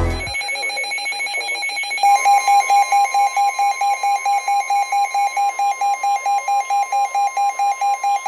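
Weather radio emergency alert sounding for a severe weather warning: a steady high tone for about two seconds, then a fast beeping alarm, about four to five beeps a second, over a steady warning tone.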